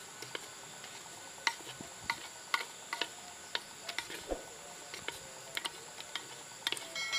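Wooden spatula knocking and scraping against a soot-blackened cooking pot as food is scooped out, a sharp click about every half second. A steady high insect drone runs underneath.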